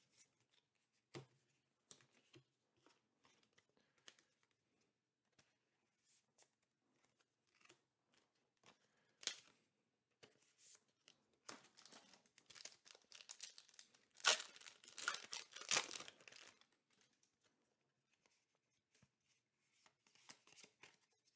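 Foil booster-pack wrapper crinkling and tearing, densest and loudest about two thirds of the way through. Scattered light clicks and rustles of trading cards being handled and set down.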